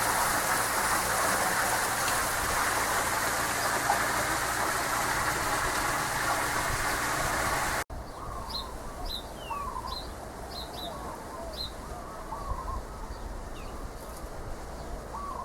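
A loud, steady rushing noise for about eight seconds that cuts off abruptly, followed by a quieter background with small birds chirping in short repeated calls.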